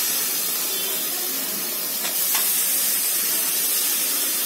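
Raw chicken pieces sizzling as they go into hot oil with fried onions and spice masala in a stainless-steel pan: a steady hissing sizzle that swells a little about two seconds in as more pieces are added.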